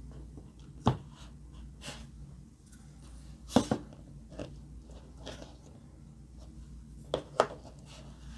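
Glossy slime squishing and popping as fingers press a plastic glitter tube and jar down into it: a scatter of short, sharp sticky pops, loudest about a second in, at three and a half seconds, and twice near the end.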